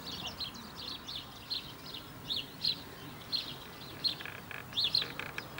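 Small songbirds chirping: a steady run of short, high chirps, about three a second, over faint outdoor background noise.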